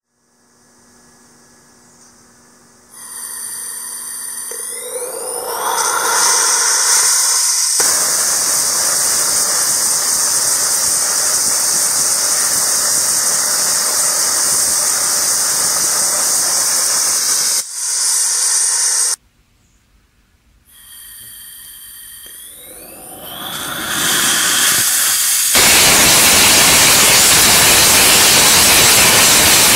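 Small homemade RUD-14 rocket engine burning gaseous oxygen and ethanol, running with a loud steady hissing roar. It starts with rising whines and builds up in steps to full thrust, cuts off suddenly about eighteen seconds in, then a second firing starts the same way and runs at full thrust near the end.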